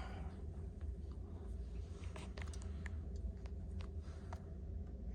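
Faint, irregular small clicks and taps of vintage pocket knives being handled and picked over by hand, over a low steady hum.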